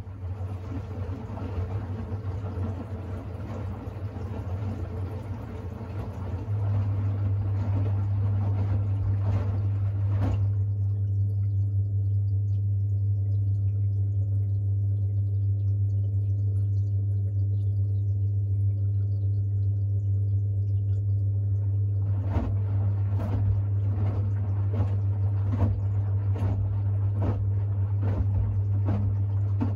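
Siemens iQ700 washing machine starting its final spin: the drain pump hums steadily while rinse water rushes out, the water sound stopping about ten seconds in. From about twenty-two seconds a run of irregular clicks and knocks joins the hum.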